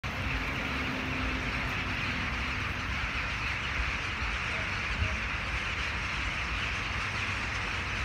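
Massed calling of a huge mixed flock of crows, rooks and jackdaws flying over, blending into one steady din, with a low rumble underneath.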